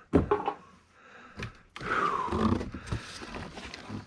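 Objects being handled and moved about in a box of old computer parts: a knock near the start, a click, then a louder stretch of scraping and rustling with a brief squeak.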